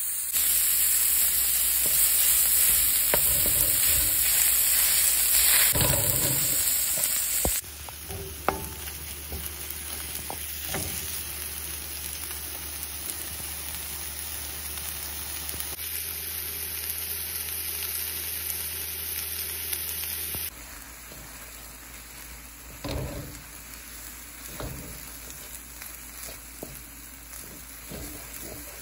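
Onions and garlic, then canned corned beef, sizzling in oil in a metal pan, stirred and scraped with a wooden spatula. The sizzle drops abruptly in level about eight seconds in and again about twenty seconds in.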